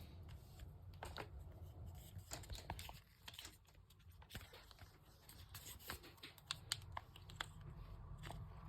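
Faint handling noise of a plastic charger and USB cable: scattered small clicks and scrapes, irregular and closer together from about two seconds in, over a low steady hum.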